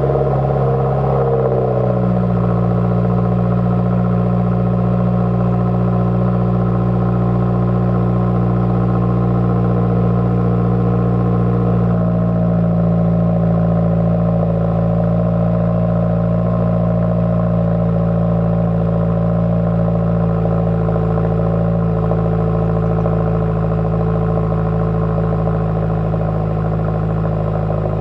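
2016 Subaru WRX's 2.0-litre turbocharged flat-four (FA20) running at a steady fast idle just after a cold start, heard at the quad tips of an axle-back muffler delete. The flare from the start settles about two seconds in, and the idle note shifts slightly about twelve seconds in.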